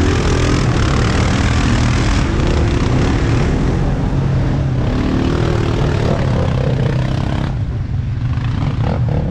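Off-road vehicle engines running steadily: the Ural truck driving among quad bikes, with a brief rise in engine pitch about five seconds in. The sound turns duller near the end.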